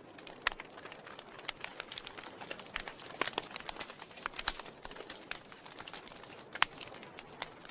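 Wood fire crackling in a fireplace: irregular sharp pops and snaps over a soft, steady hiss, with a few louder snaps standing out.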